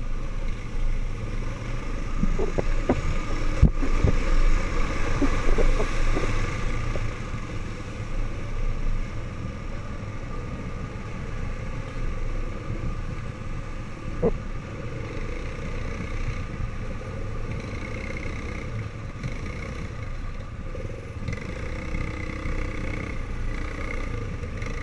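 ATV engine running, heard from the rider's seat, with sharp knocks and rattles from the quad jolting over rough dirt in the first several seconds. After that it settles to a steadier, slightly quieter running sound.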